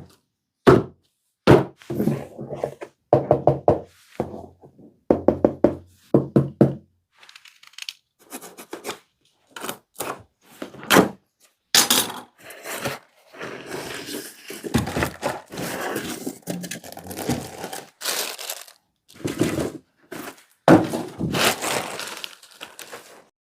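Handling noise from unboxing a speaker set: a series of thuds and knocks as the cardboard box and its contents are moved and set down, then longer spells of cardboard and packing material rustling, punctuated by more knocks.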